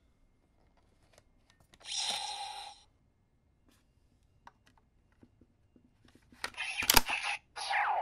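Toy Kamen Rider gear clicking and playing electronic sound effects: a short electronic tone about two seconds in, then near the end the CSM Dragvisor gauntlet snapping shut on a loaded card with a sharp clack and a loud burst of electronic sound with a falling sweep.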